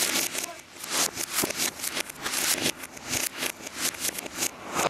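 A ground firework's spark fountain crackling and hissing, played backwards. A dense run of crackles rises and falls in quick uneven swells.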